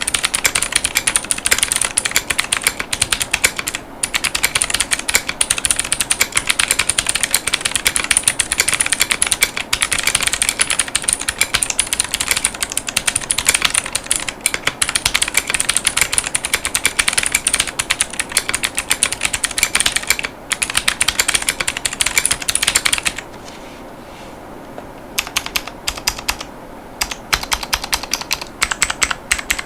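Fast continuous typing on a Yunzii X75 mechanical keyboard with Yunzii Crystal White 50 gf tactile switches and clear polycarbonate Cherry-profile keycaps, a dense stream of key clacks. The typing stops for about two seconds a little after twenty seconds in, then resumes more sparsely.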